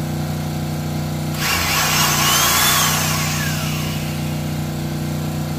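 Handheld power drill driving a fastener into the truck wall. Its motor whine rises and then falls over about two and a half seconds, starting about a second and a half in. A steady low hum runs underneath.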